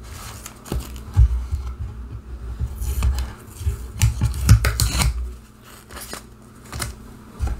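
Painter's tape being peeled off a painted wood sign and crumpled, heard as a run of short crackling rips with light knocks and rubbing, which die down about five seconds in.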